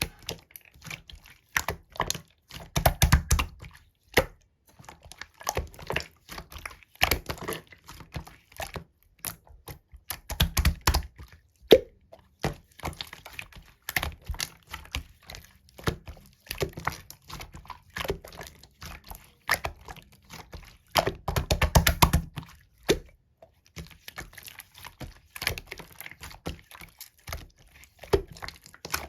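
Slime being squeezed and pressed by hand, giving irregular runs of sticky clicks and small pops, with louder bunches every few seconds.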